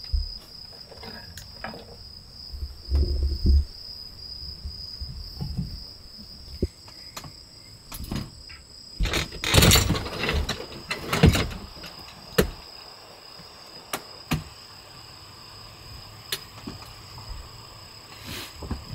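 Crickets chirping steadily outside, with knocks, clicks and rustling as a hinged window panel in the camper wall is lifted, propped open and handled, loudest about nine to eleven seconds in.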